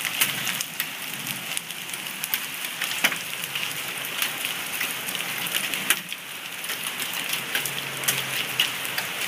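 Rain mixed with small hail falling on wet pavement and grass: a steady hiss of rain with frequent sharp ticks of individual hailstones striking.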